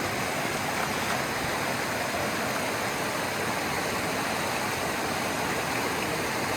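Steady rushing of a creek's flowing water, swollen by recent rain.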